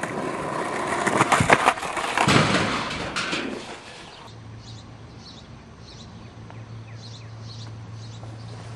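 Footsteps scuffing and knocking on a concrete driveway, loud for the first few seconds. About four seconds in the sound changes suddenly to a quieter steady low hum with faint high chirps.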